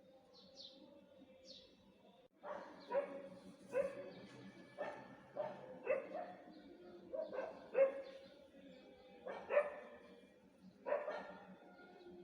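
A dog barking repeatedly, about a dozen short barks in irregular runs starting about two seconds in, after a few faint bird chirps.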